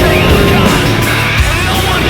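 Loud hard rock music.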